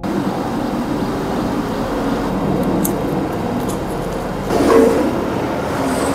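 Steady rumbling roar of a large gas burner under a big aluminium cooking pot, with a few metal clinks and a louder clatter about three quarters of the way through.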